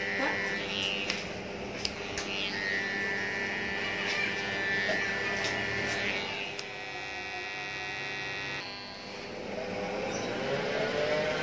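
Electric hair clippers buzzing steadily as they cut hair over a comb (the clipper-over-comb technique), with a few light clicks.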